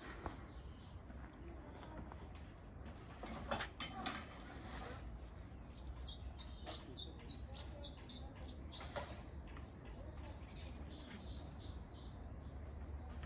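A small songbird singing, mostly in the second half: a quick run of short, high chirps repeated about two to three times a second. Soft low outdoor rumble underneath, with a brief rustle or knock about three and a half seconds in.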